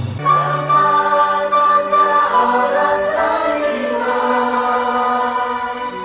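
Music: a choir singing long held chords with no percussion, the chords changing every couple of seconds.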